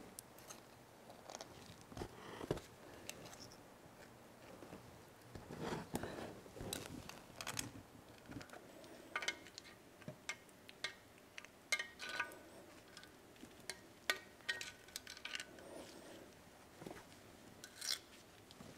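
A metal scraping tool working through thick old gear grease, scraping and clicking against the metal of a milling-machine gearbox and a metal pan. The sounds come as faint, scattered clicks and scrapes, a few with a brief metallic ring.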